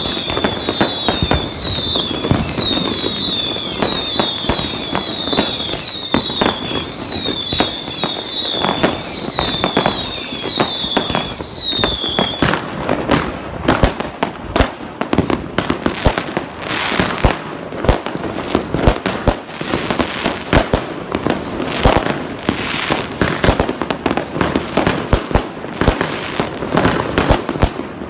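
Fireworks going off close by. For about the first twelve seconds there is a rapid series of whistling shots, each whistle falling in pitch, about two a second. The whistles then stop abruptly and give way to a dense crackle of bangs and pops for the rest.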